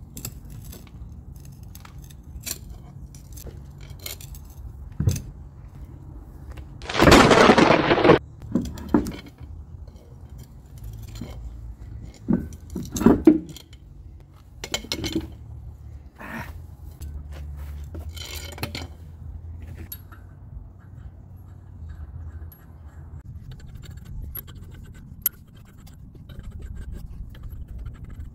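Steel pry bar scraping on concrete and clanking as a heavy semi-truck wheel is levered up onto its hub, with one loud scrape about seven seconds in and scattered knocks and clinks.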